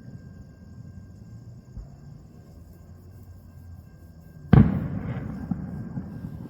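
An aerial firework shell bursting once with a loud boom about two-thirds of the way in, followed by a rolling, fading echo. A low rumble runs underneath before the burst.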